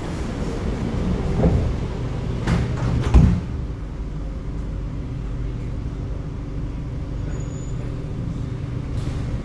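Inside an SMRT C751B train car: a steady low hum of the train's equipment, with a few knocks and thumps in the first three seconds, the loudest just after three seconds.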